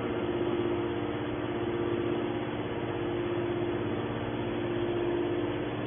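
Hydraulic baler's pump and motor running with a steady hum.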